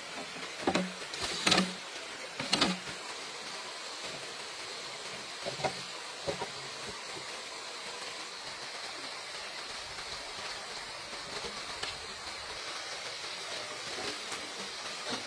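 Sharp knocks from bamboo being worked: three loud ones in the first three seconds and two fainter ones around six seconds, over a steady hiss.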